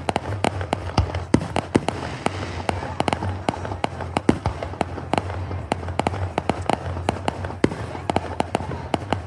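Fireworks going off in a rapid, irregular run of sharp bangs and crackles, several a second, over a steady low hum.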